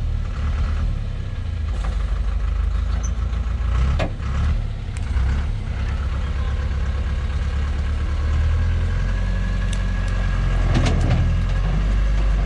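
Heavy log truck's diesel engine running while the truck sits bogged down in deep mud, getting a little louder over the second half. A few sharp knocks about four seconds in and again near eleven seconds.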